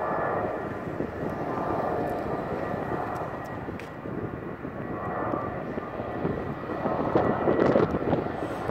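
Jet airliner engines running out on the airfield: a steady rumble with a faint whine that swells and eases, loudest near the end.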